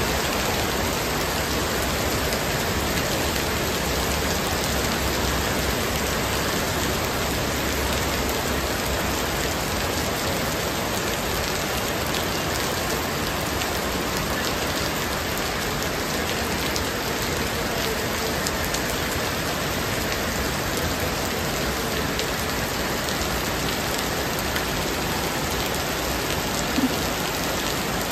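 Heavy rain pouring steadily onto a flooded street, an even, unbroken hiss of falling water with one brief tap near the end.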